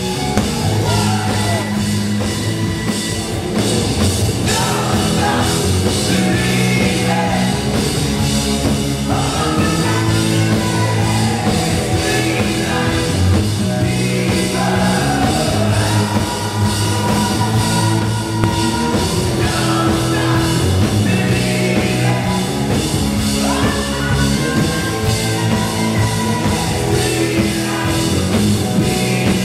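Live rock band playing loudly: drum kit, electric guitars and a lead singer.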